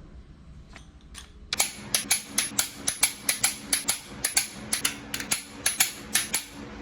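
A fast, somewhat irregular run of sharp, loud clicks or taps, about four a second, starting about a second and a half in, after a faint low hum.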